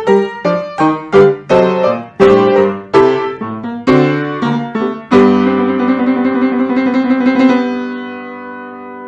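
Solo piano playing a run of struck chords, then a final chord about five seconds in that is held and slowly fades: the closing chord of the piece.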